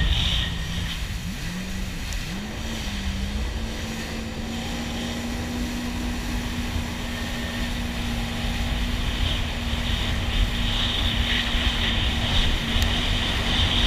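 Jet ski engine running under way, with rushing water and spray along the hull. Its note rises and dips over the first few seconds, then holds steady, and grows a little louder near the end.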